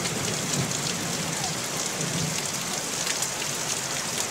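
Heavy downpour: rain falling hard and steadily on grass, boards and roofs, an even hiss with no break.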